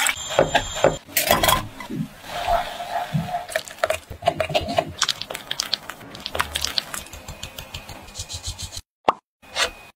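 Kitchen handling sounds in quick succession: milk poured into a small saucepan, a spatula scraping and pressing a chocolate mixture through a metal sieve, and small clinks and scrapes of bowls and utensils.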